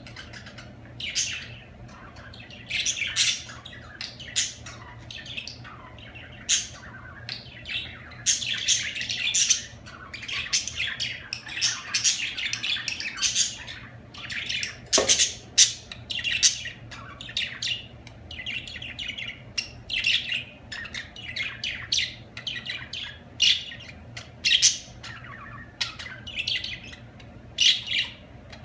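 Several budgerigars chirping and warbling in a dense, continuous run of short overlapping calls.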